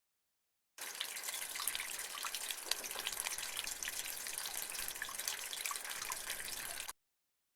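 Running, splashing water with many small drips and ticks, at a steady level. It starts abruptly about a second in and cuts off suddenly near the end, like a sound-effect sample played back.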